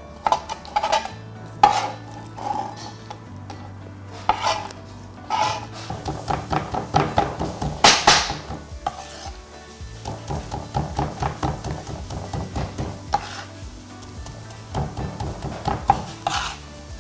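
A cleaver chopping raw chicken on a cutting board, mincing it fine. It starts with a few scattered strokes, then from about six seconds in settles into rapid, steady chopping at roughly three strokes a second, with one louder knock around eight seconds.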